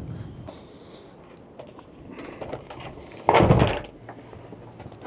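A heavy boat battery being worked loose and hauled out of a console compartment by its strap: scattered knocks and clicks, then one loud clunk with a scrape about three and a half seconds in.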